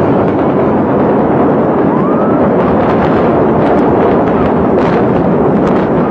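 Explosive demolition of a hotel tower: sharp blasts and cracks over a loud, continuous rumble of the implosion.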